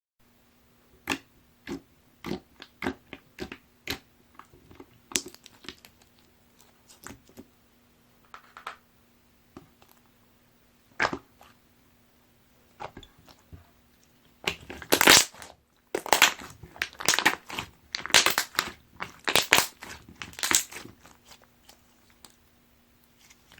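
Chocolate pudding slime being handled, making sharp wet clicks and pops as air pockets burst: scattered single clicks at first, then about fourteen seconds in a denser, louder run of squishing and popping lasting several seconds.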